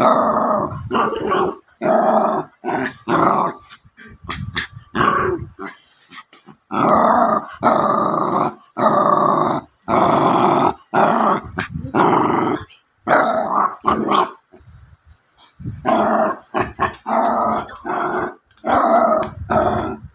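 Jack Russell terrier puppy growling in a long run of short, throaty bursts, with a brief pause about three quarters of the way through.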